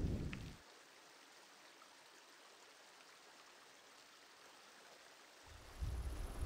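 Near silence with a faint, steady hiss; a low rumble comes in shortly before the end.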